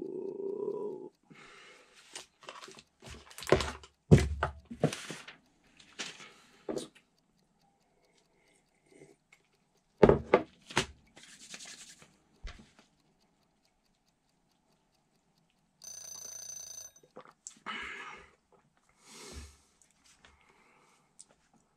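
A low vocal groan trails off about a second in. Irregular rustling, knocks and handling noises follow, with a short steady high-pitched tone about sixteen seconds in.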